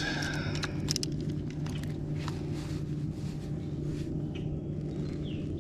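Light clicks and rattles of a fish lip-grip scale being clipped onto a bass's lip and lifted, most of them in the first second or so, over a steady low hum.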